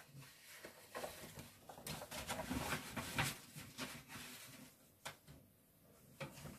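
Handling noise as paper sheets and plastic sheeting are moved and a cloth towel is picked up: soft rustling with light knocks and clicks, busiest over the first few seconds, thinning to a couple of single clicks near the end.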